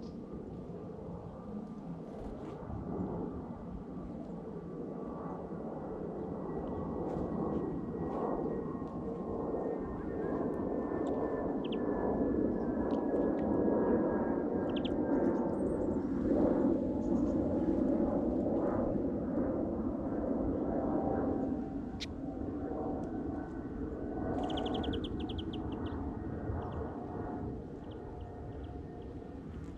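An aircraft flying over: a steady drone that builds to a peak about halfway through and then fades, its pitch sliding slowly down as it passes. A few short bird chirps sound through it.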